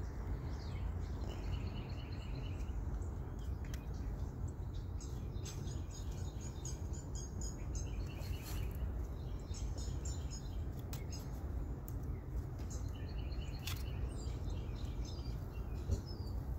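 Small birds chirping repeatedly over a steady low background rumble.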